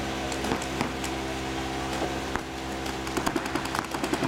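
Paintball markers firing during a match: a few scattered single shots, then a rapid string of shots from about three seconds in. A steady low hum runs underneath.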